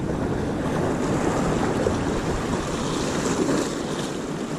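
Ocean surf washing steadily on the beach, with wind rumbling on the microphone.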